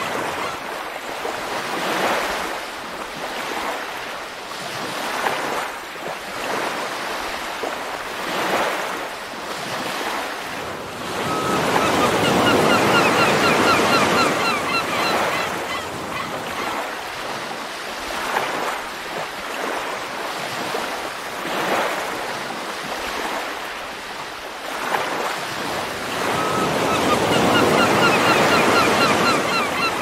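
Ocean surf washing in and out, with waves breaking every few seconds and two longer, louder surges about twelve seconds in and near the end. Faint short bird calls come through during the louder surges.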